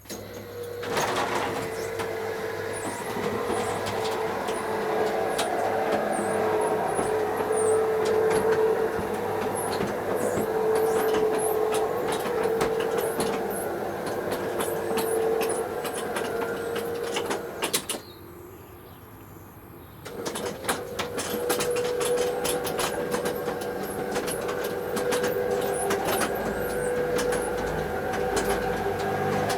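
Electric garage door's opener motor running with a steady hum and clattering clicks as the door travels, stopping about eighteen seconds in, then starting up again after a two-second pause as the door moves back the other way.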